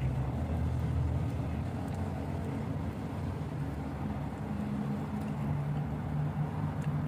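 Steady low background rumble with a faint hum.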